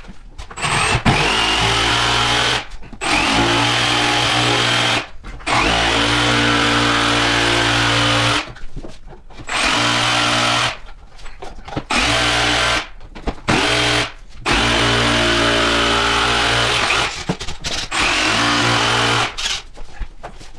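Milwaukee Fuel cordless jigsaw cutting a rectangular opening through the back of a wooden drawer. It runs in about eight stretches of one to three seconds, stopping briefly between them as the cut is steered around the cutout.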